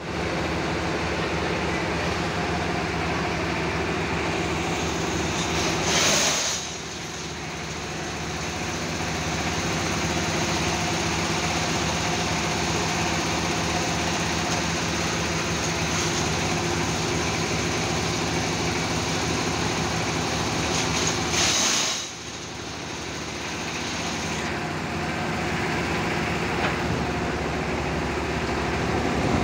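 Factory machinery running steadily with an engine-like hum. About six seconds in and again about twenty-two seconds in there is a brief loud hiss, each followed by a short dip in the level.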